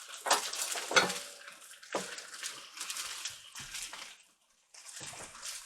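Spatula scraping and knocking against a frying pan as fried rice is worked in it, over a steady hiss, with a few sharp knocks in the first two seconds and a short pause a little past four seconds in.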